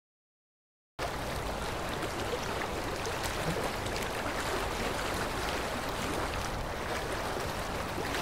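Silence for about a second, then the steady rush of a fast river running over whitewater rapids starts abruptly.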